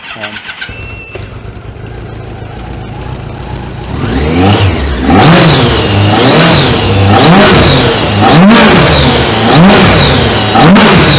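Kawasaki 1400 GTR inline-four motorbike engine, fitted in a kit car, started on a push button: it catches within a second and idles. From about four seconds in it is revved repeatedly by hand at the throttle linkage, about one blip a second, with induction roar from the open intake trumpets.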